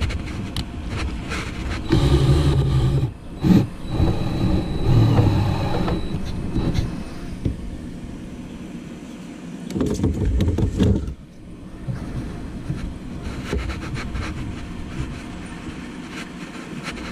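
Cordless screw gun running in short bursts as it drives a screw, the longest burst about four seconds in carrying a high motor whine.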